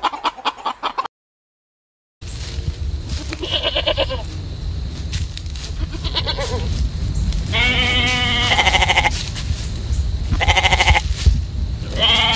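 Hens clucking for about a second, then after a brief silent cut, sheep and lambs bleating about five times over a steady low rumble.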